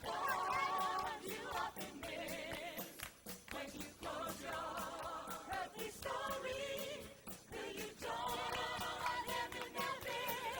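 Several voices singing held notes together in harmony, with vibrato, over backing music.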